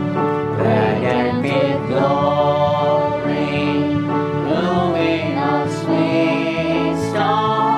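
Worship song sung over instrumental accompaniment with held chords and a stepping bass line, the singing rising and falling in long phrases with vibrato.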